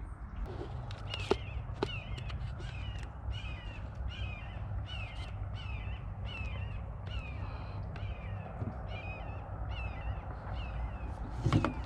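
A bird calling over and over in a steady series of short, falling calls, about two a second, over a steady low rumble. Two sharp clicks come in the first two seconds.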